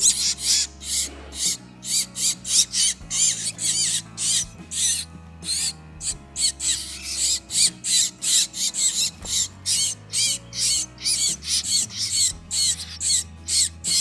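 Nestling songbirds begging for food: a rapid, high-pitched chirping, about two to three calls a second, louder as tweezers with food come down to them. Background music with a low bass line plays underneath.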